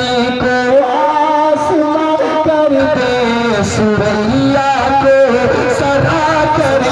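A man singing Urdu devotional verse (naat) in a long, drawn-out melismatic line, holding and bending sustained notes, amplified through a microphone and loudspeakers.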